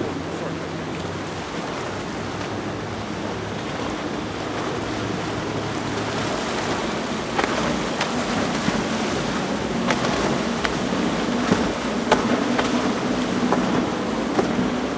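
Outboard-powered sport-fishing boats running past at speed, a Grady-White with several outboards on its transom in the second half: a steady low engine drone mixed with the rush of spray and wake. Several sharp smacks come in the second half.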